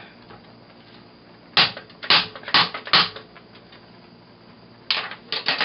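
A metal box grater on a wooden cutting board: four short, sharp scraping knocks in quick succession about a second and a half in, and three more near the end, as the last of the grated onion is worked off the grater.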